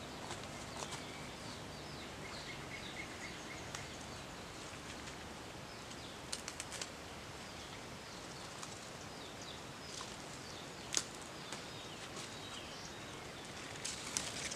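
Quiet outdoor garden ambience with small birds chirping, including a short repeated chirp series a couple of seconds in. A few short sharp snaps, three close together about six seconds in and a louder one about eleven seconds in, come from bok choy leaves being picked by hand.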